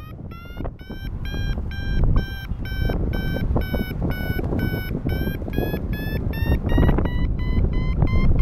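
Paragliding variometer beeping in a steady run of short electronic tones, about three a second, the pitch creeping up and then stepping down about seven seconds in: the audio climb signal, telling the pilot the glider is rising in lift. Wind rumbles on the microphone underneath.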